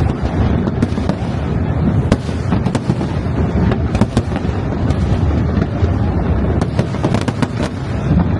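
Aerial fireworks going off in quick succession: many sharp bangs and crackles, irregularly spaced, over a continuous low rumble.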